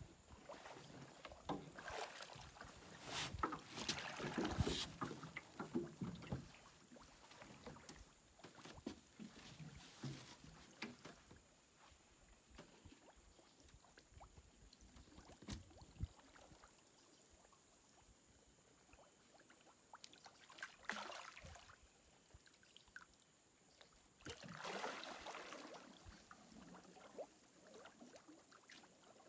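Faint, irregular water splashes and knocks around a small boat. The sounds are busiest in the first few seconds, with further bursts about two-thirds and five-sixths of the way through, and quieter stretches between.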